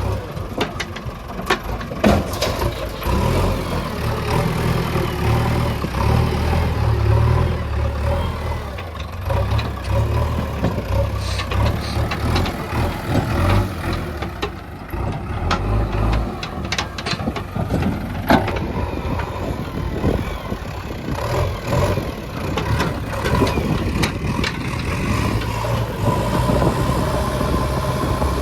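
Diesel engine of a JCB 3DX backhoe loader running while it works, a steady low drone with many scattered knocks and clatter throughout.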